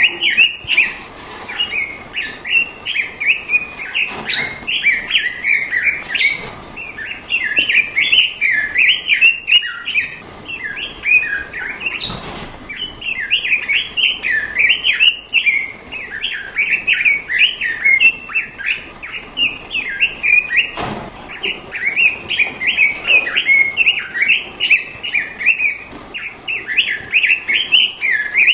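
Straw-headed bulbul (cucak rawa) singing a continuous run of rich, bubbling warbled phrases, one after another with only short gaps, and a few faint clicks in the background.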